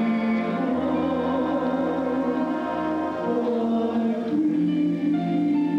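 Choir singing long held chords with accompaniment, the harmony changing every second or so.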